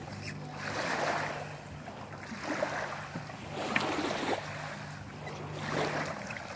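Small waves lapping and sloshing in the shallows around a small kayak as a person climbs into it, the wash swelling and fading about every one and a half to two seconds, with a few sharp splashes near the middle.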